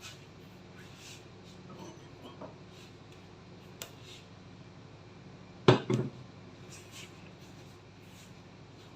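Quiet handling noises: faint scattered clicks and taps, with one sharp, loud knock a little before six seconds in.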